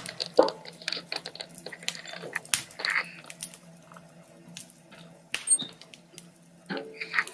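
Wood fire crackling in a wood stove: irregular pops and snaps, busier in the first few seconds and sparser later.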